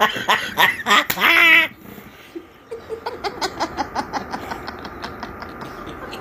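A person laughing hard in quick rhythmic bursts, ending in a drawn-out wavering laugh that stops about a second and a half in. After that come only faint, quick pulses.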